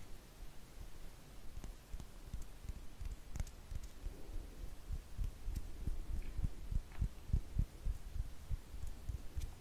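Soft, irregular low thumps of hands moving right up against a microphone in ASMR face-caressing gestures, growing more frequent about halfway through, with a few faint clicks.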